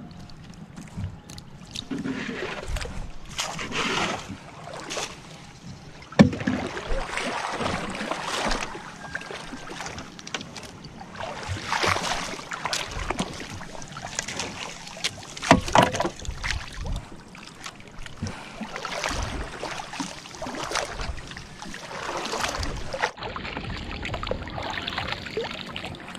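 Shallow seawater sloshing and splashing in irregular swells, as someone wades through it alongside a gill net and a small boat. Two sharp knocks stand out, about six seconds in and again near sixteen seconds.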